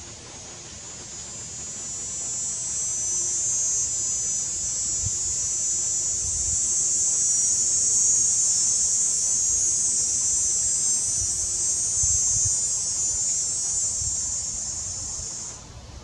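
Cicada calling: one long, loud, high buzz that swells over the first few seconds, holds steady, and cuts off suddenly near the end. Underneath are a few dull low knocks from the pileated woodpecker pecking and tearing at the rotten log.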